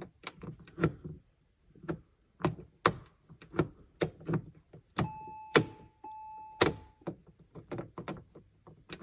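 Rotary headlight switch of a 2002 Porsche 911 (996) clicking irregularly as it is turned back and forth through its positions, a stiff, sticking switch being worked loose. About halfway through, an electronic chime from the car sounds twice, a short tone then a longer one.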